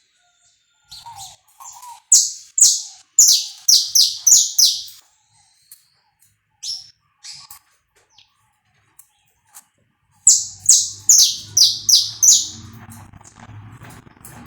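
Saffron finch (canário-da-terra) singing: two runs of rapid, loud, high chirps, each lasting about three seconds, separated by a few scattered single notes. A low hum comes in with the second run.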